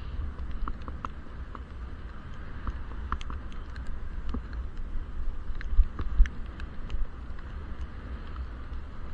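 Low wind rumble on a helmet-mounted action camera sealed in its waterproof case while cycling, with scattered light ticks throughout and two heavier low thumps a little past halfway.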